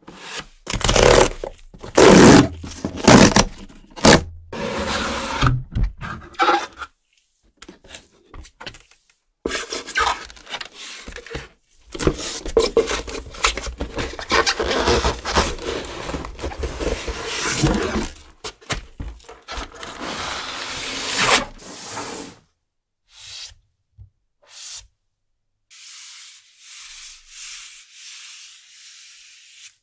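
Cardboard packaging being handled and opened with gloved hands: a shipping box and a tablet's retail box. There are loud scraping strokes in the first few seconds, then a long stretch of cardboard sliding and rubbing, then fainter, shorter touches with gaps near the end.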